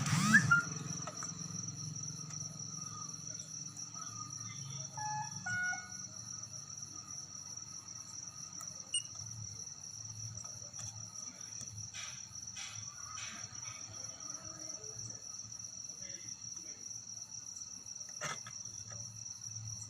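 Steady high-pitched insect trilling in the background, with a few faint clicks.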